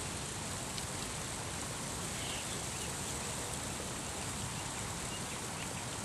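Steady outdoor background hiss with a few faint, short high chirps.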